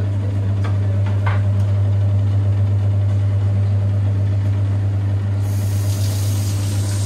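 A steady low hum throughout. About five and a half seconds in, a kitchen tap starts running, its water hissing into a stainless-steel sink as a knife is rinsed under it.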